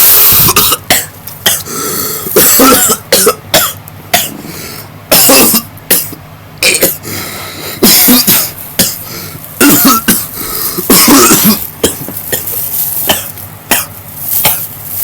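A person in a long, hard coughing fit: loud coughs coming one after another in quick runs, with brief throat-clearing and strained breaths between them.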